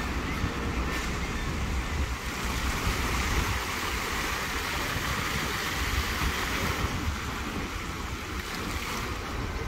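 Plaza fountain jets splashing into a shallow pool: a steady rushing hiss that swells in the middle. Wind buffets the microphone with a low rumble.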